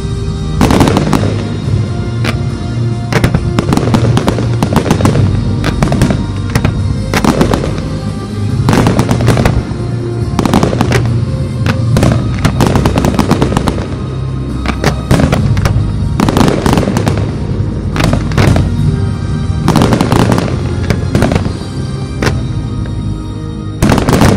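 Aerial firework shells bursting in quick succession, dozens of sharp bangs one or two a second, with music playing underneath.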